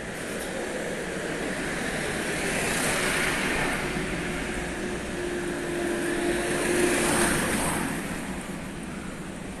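A car driving past: engine hum and tyre noise swell, peak twice, and fade near the end.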